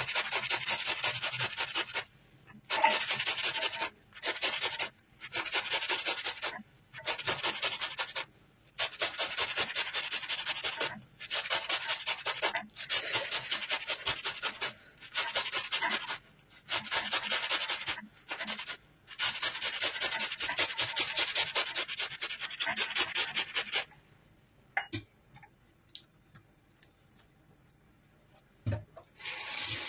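Half a tomato scraped against a metal box grater in quick strokes, several a second, in runs of a couple of seconds with brief pauses. The grating stops a few seconds before the end, leaving a few faint clicks.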